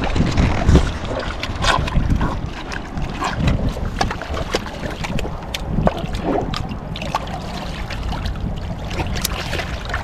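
Wind buffeting the microphone over water lapping against rocks, with scattered small splashes and clicks.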